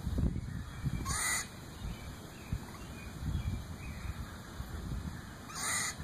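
A squirrel's harsh alarm calls, chicken-like, two short calls about four and a half seconds apart, the first rising at its start.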